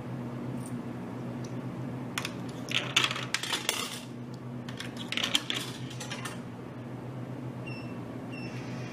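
Quarters clattering down into a vending machine's change return in two rapid runs of clinks, over a steady low hum. Two short high beeps near the end.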